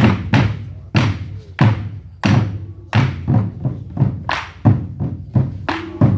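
Korean buk barrel drums (Goguryeo drum performance) beaten in a driving rhythm, about two to three heavy booming strokes a second, each ringing out briefly.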